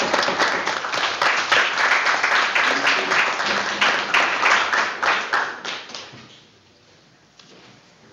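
A small group applauding, dense clapping that dies away about six seconds in.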